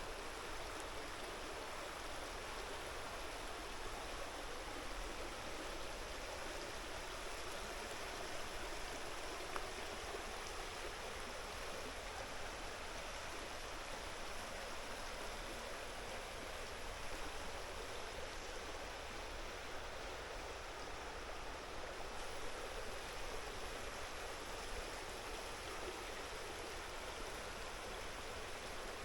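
A creek running: a steady rush of flowing water.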